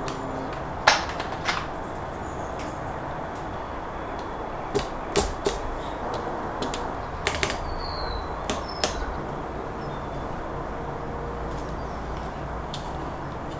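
Plastic keycaps and switches of a mechanical keyboard clicking and clacking as the keycaps are pressed onto the switches, about eight sharp clicks at irregular intervals, some in quick pairs.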